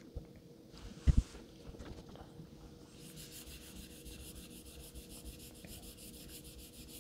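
Straight razor blade rubbing on a wet Shapton 5K waterstone with slurry: a faint, even scraping that starts about three seconds in, after a couple of sharp knocks about a second in.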